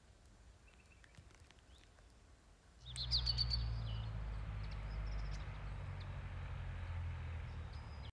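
Outdoor ambience with birds chirping: a few faint chirps at first, then from about three seconds in a cluster of high chirps over a steady low rumble of wind on the microphone.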